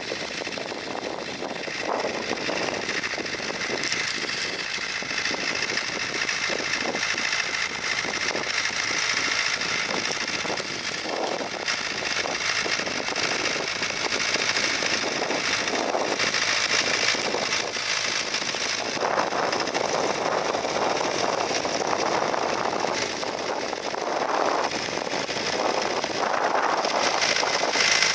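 International B-275 tractor engine running steadily under load while pulling a mounted plough through the ground.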